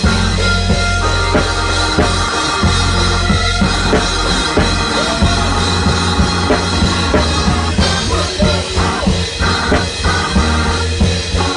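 Live band music with a drum kit played close by: snare, bass drum and cymbal strikes in a steady beat over held bass notes and sustained chords.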